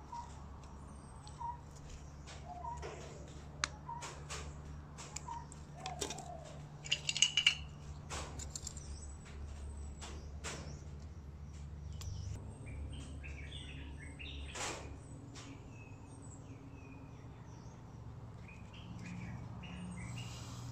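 Sharp clicks and taps of KS Tools Ultimate steel combination pliers and copper wire being handled, with a short loud cluster of clicks about seven seconds in. Small birds chirp in the background over a steady low hum.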